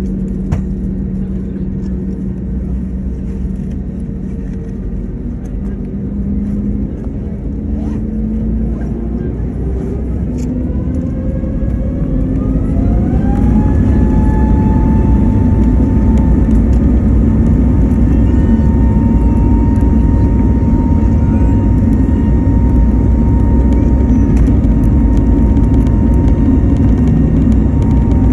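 CFM LEAP-1A turbofan of an Airbus A320neo heard from a cabin window seat beside the engine, spooling up: its whine rises steadily in pitch for several seconds, then settles at a high steady tone over a loud rumble, typical of the engines coming up to takeoff thrust.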